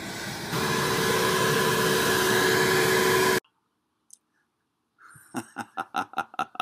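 A Shop-Vac wet/dry vacuum running steadily with a whine as it sucks up dandelions; it gets louder about half a second in and cuts off abruptly a little over three seconds in. After a short silence, a man laughs heartily near the end.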